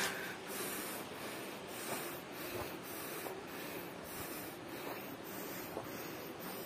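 Faint, irregular footsteps on dry dirt over a steady outdoor hiss.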